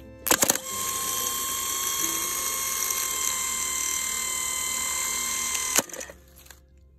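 International Scout 800's old starter motor, bench-tested on jumper cables: a few sharp clicks, then the motor spins free with a steady whine for about five seconds and stops abruptly. The owner judges the starter worn out.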